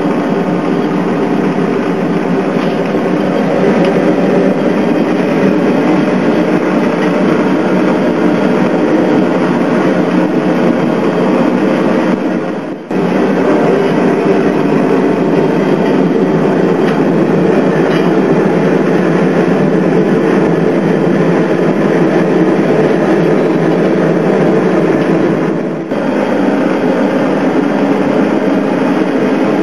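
Gas forge burner running steadily, a loud, even rush of burning gas, while a clay-coated knife blade heats inside for selective hardening. The sound dips briefly twice.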